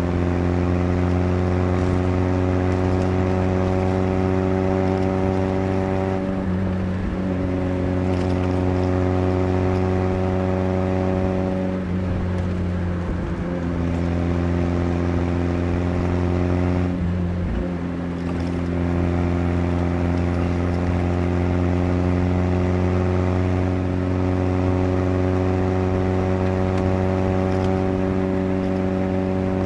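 1982 Chevrolet Chevette's rebuilt 1400cc 8-valve four-cylinder engine pulling at a steady pitch while the car is driven. The note breaks off briefly three times, about six, twelve and seventeen seconds in, as the engine eases off and picks up again.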